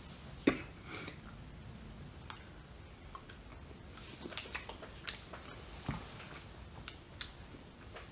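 Quiet chewing of filled chocolates, with a scatter of soft mouth clicks and smacks.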